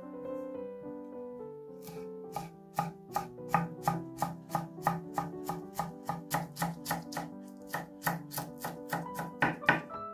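Chef's knife chopping fresh dill on an end-grain wooden cutting board: a quick, even run of knife strikes against the wood, about three or four a second, starting about two seconds in. Soft background music plays underneath.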